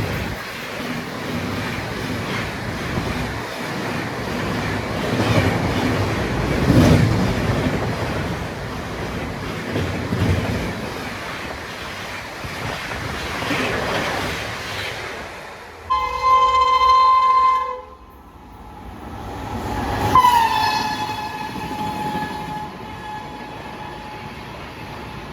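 Train running through the station with rumbling and rail clatter. About two-thirds of the way in, a locomotive horn sounds loudly for about two seconds and cuts off. A couple of seconds later a second horn call starts, dips slightly in pitch and fades.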